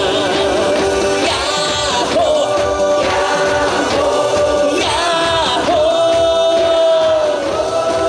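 Male trot singer performing live over a loud backing track, with a long held note in the second half.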